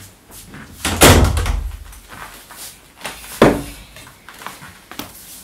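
A door shutting with a heavy thud about a second in, then a second sharp knock a couple of seconds later.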